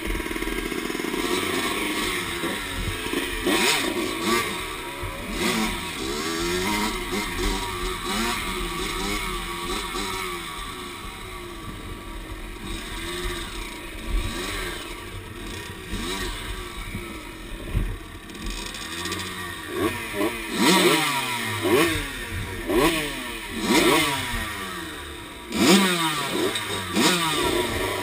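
Dirt bike engine revving up and down over and over as the throttle is worked on a rough trail, with the clatter of the bike over the ground. The revs come in quick, sharp bursts in the last several seconds.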